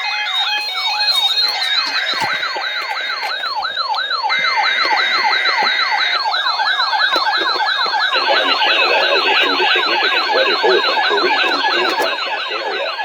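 Electronic emergency-alert attention signal, a siren-like tone that sweeps down in pitch over and over, several times a second, sounding ahead of a severe weather bulletin.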